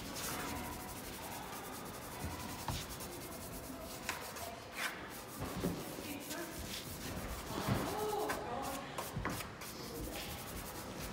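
Rubbing and scuffing noises with a few light knocks, over faint background chatter in a large indoor hall.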